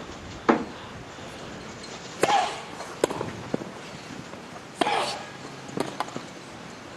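Tennis rally: racket strikes on the ball every second or two, some with a short grunt from a player, and lighter ball bounces in between.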